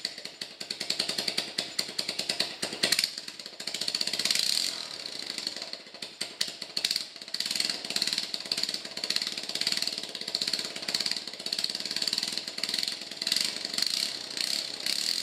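Lifan single-cylinder four-stroke engine of a Honda CT110 postie bike running on a freshly fitted NGK C7HSA spark plug, with a fast, even firing rhythm and its speed rising and falling a few times.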